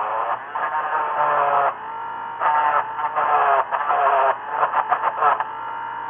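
Dremel rotary tool grinding out a drilled hole to square it off. Its whine wavers and dips in pitch in short stretches, with a quick choppy run of on-off pulses near the end.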